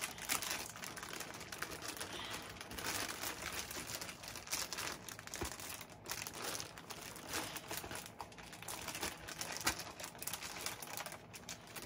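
Plastic poly mailer bag crinkling and rustling continuously, with irregular crackles, as it is tugged and twisted by hand in an attempt to pull it open.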